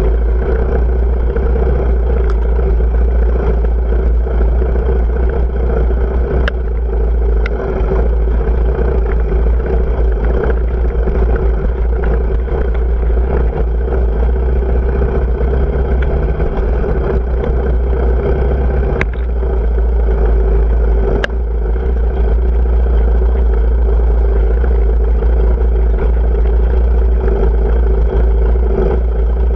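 Off-road motorcycle engine running steadily while the bike is ridden, over a heavy low rumble, with a few sharp knocks.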